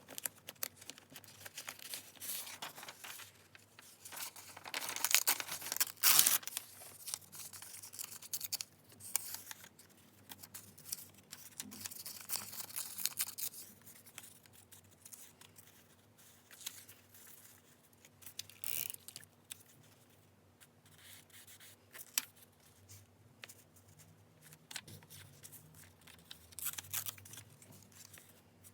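Paper handled close to the microphone: irregular rustling, crinkling and tearing of paper and stickers, with small taps and clicks in between.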